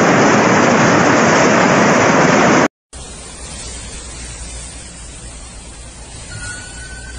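Floodwater torrent rushing, a loud steady wash of water noise that cuts off abruptly about two and a half seconds in. It is followed by the quieter rush of floodwater in a street with a low rumble, and near the end a faint steady high tone.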